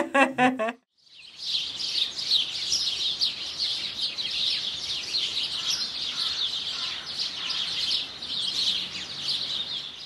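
Many songbirds chirping and singing together in a dense run of short high notes, starting about a second in.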